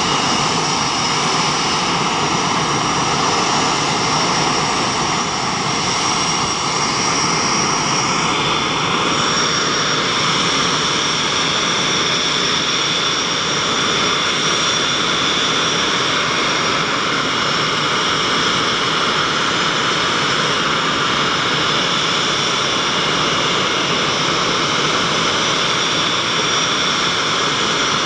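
Blue Angels F/A-18 Hornets' General Electric F404 turbofan jet engines running on the ramp after engine start: a loud, steady roar with a high whine, whose pitch shifts about eight or nine seconds in.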